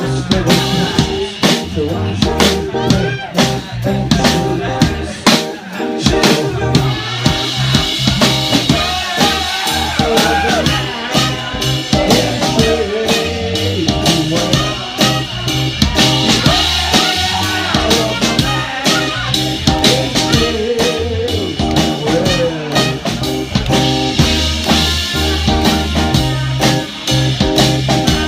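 Live band playing loudly: a drum kit keeps a steady beat with a wavering melody line over it.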